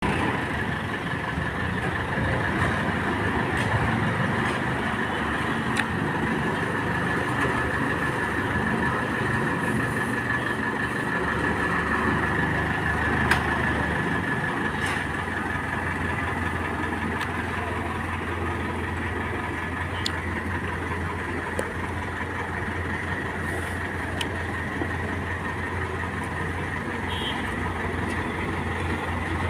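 Combine harvester running: a steady engine drone with a steady high whine over it, the low drone growing stronger about halfway through.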